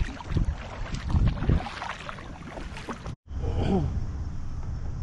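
Kayak paddle strokes splashing in the water, with wind on the microphone, in uneven surges. The sound cuts off abruptly about three seconds in, giving way to a steady low rumble and one short falling vocal sound like a sigh.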